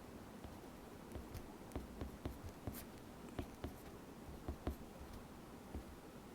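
Faint handwriting: irregular light taps and scratches of a pen on a writing surface, most of them in the middle few seconds, over a faint steady hiss.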